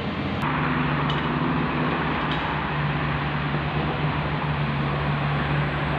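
Diesel engine of heavy construction machinery, such as a crawler crane, running steadily with a low hum under a broad rushing noise. The sound changes abruptly about half a second in.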